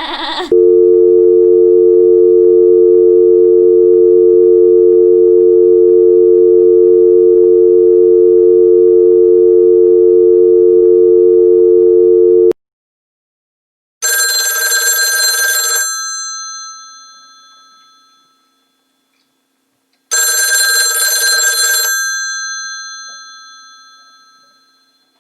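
Telephone dial tone: a steady two-note hum lasting about twelve seconds, then cutting off. After a short pause a telephone bell rings twice, each ring about two seconds long and fading away.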